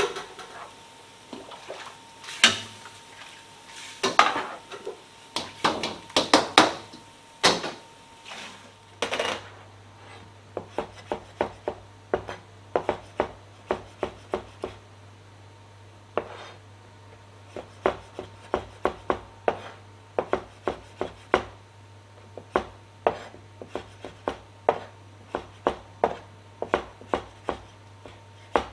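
A metal utensil clattering and scraping in a wok as beef pieces are stir-fried, irregular knocks for the first nine seconds or so. Then a cleaver chopping cooked beef on a plastic chopping board, sharp, even chops about two a second.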